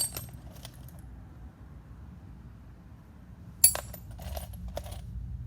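Small metal hardware, nuts and bolts, clinking as it is handled: a clink at the start, a quiet gap, then a sharp clink a little past halfway followed by a few lighter ones.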